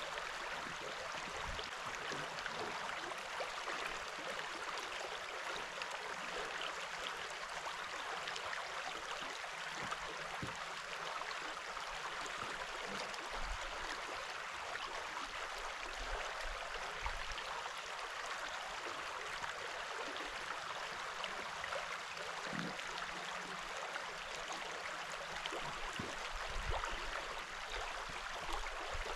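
A creek running steadily: an even rushing hiss of flowing water, with a few soft low thumps.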